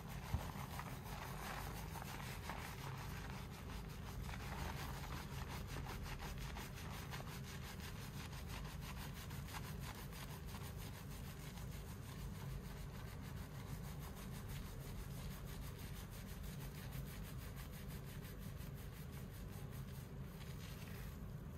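Fingers scrubbing and massaging a lathered scalp during a salon shampoo: a continuous, rapid, even rubbing and squishing of wet hair and foam, over a low steady hum. A single brief click about half a second in.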